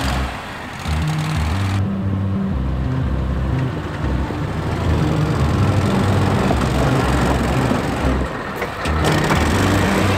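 Background music with a bass line stepping between low notes, mixed with the engine of a six-wheel amphibious ATV driving off-road.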